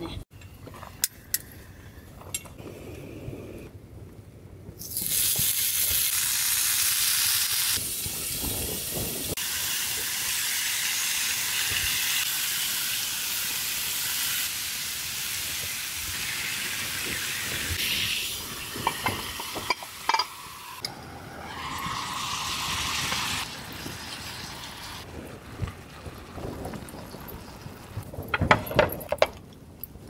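Pork, sliced onion and lemon sizzling in a hot double-sided sandwich pan over a camping gas stove. The sizzle starts suddenly about five seconds in and drops to a softer hiss after about twenty seconds, with a few light knocks near the end.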